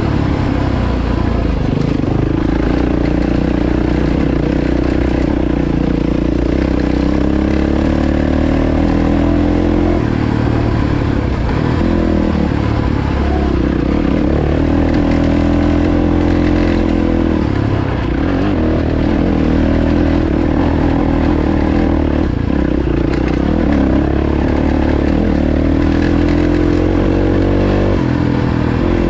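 Yamaha WR450F dirt bike's single-cylinder four-stroke engine running under way on a gravel track, its note rising and falling repeatedly.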